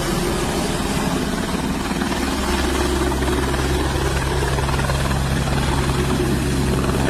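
Civilian helicopter running steadily and loud, a constant low drone of rotor and engine with no change in pitch.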